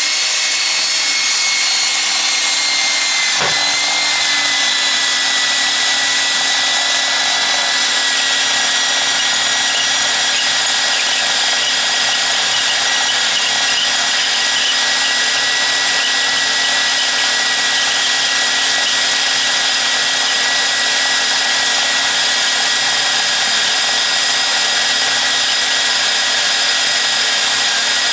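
Electric drill running continuously with a steady high motor whine, the pitch dipping slightly a few seconds in as it comes under load.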